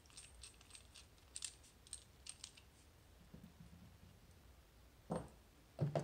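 Light metal clicks and clinks of a small screwdriver undoing the screw that holds the cam on a magnetic cam lock, and the steel cam and nut coming off. A handful of separate ticks in the first couple of seconds, then quieter.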